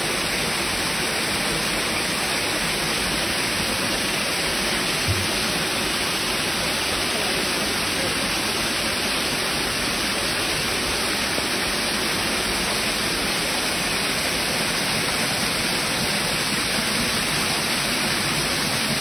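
Steady rushing of a small waterfall pouring into a rock pool, with a brief low thump about five seconds in.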